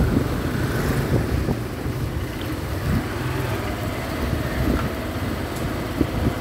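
A motorcycle engine running steadily at low speed, heard from on the bike itself, with wind rumbling on the microphone.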